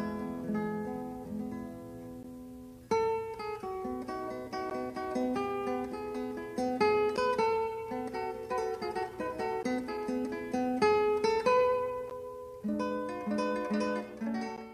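Background music: an acoustic guitar picking notes and chords that ring out and fade, with a new, louder phrase starting abruptly about three seconds in.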